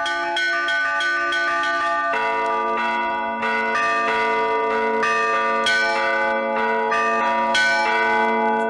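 Russian church bells rung from ropes by one ringer: a fast run of quick, even strokes on the middle (podzvon) bells over the small bells' chime. About two seconds in, a lower, heavier bell joins and rings on under the rapid strokes.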